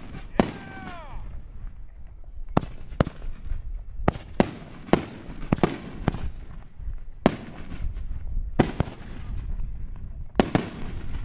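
Aerial firework shells bursting in a display: about a dozen sharp bangs at irregular spacing, several coming in quick succession near the end.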